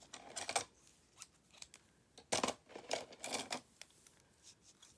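A few brief rustles and scrapes of a paper card and silver metallic trim being handled on a desk as scissors are brought in to trim the knotted ribbon ends.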